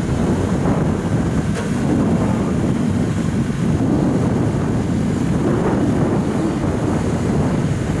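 Manitou MRT2145 rotating telehandler's diesel engine running steadily, largely buried under heavy wind buffeting on the microphone.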